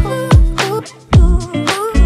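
Background music with a steady drum beat, bass and a gliding lead melody, briefly dropping out about a second in.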